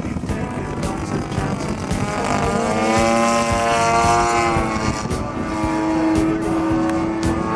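DLE-55 single-cylinder two-stroke gas engine of a 27% scale RC Yak-54 in flight, still in its break-in period. The engine note climbs and then drops back, loudest about three to four seconds in, and holds steady near the end.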